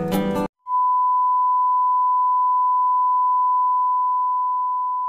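Acoustic guitar music cuts off about half a second in, followed by a single steady, high-pitched electronic beep tone held for about five seconds, slowly fading near the end.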